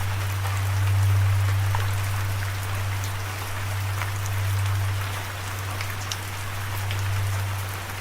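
Steady rain falling, an even hiss with scattered small drop ticks. Underneath it runs a low sustained drone note that slowly swells and fades.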